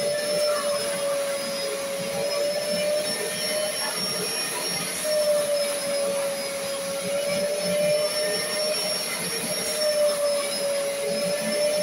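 Upholstery extraction cleaner's vacuum motor running steadily, a high whine over rushing air, while its hand nozzle is drawn across sofa fabric; the pitch wavers slightly with the strokes.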